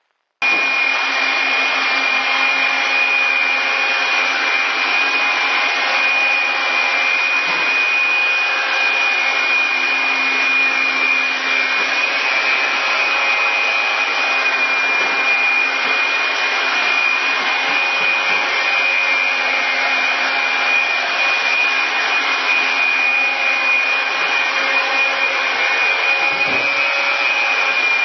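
iRobot floor-cleaning robot running: a steady motor and brush noise with a high whine, starting suddenly just after the beginning.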